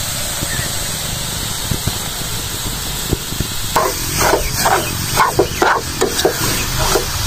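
Grated bottle gourd sizzling in a non-stick pan as sugar is poured in. About halfway through, a steel spoon starts stirring it, giving a run of short scraping strokes, two or three a second.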